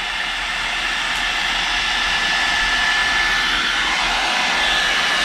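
One Step hot-air dryer brush blowing steadily: an even rush of air with a thin high whine running through it.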